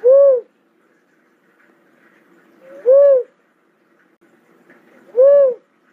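Cuckoo-dove calling: three short single coos about two and a half seconds apart, each rising and then falling in pitch.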